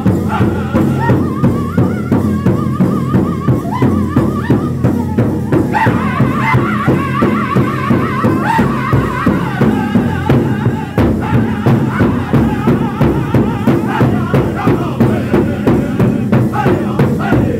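A powwow drum group singing an intertribal song in high voices in unison while beating a large shared powwow drum with sticks in a steady, quick beat.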